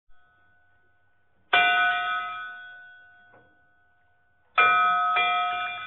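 Intro sting of a bell-like chime struck twice, about three seconds apart, each ringing with several tones and slowly fading. The second chime has a quick extra strike about half a second after it.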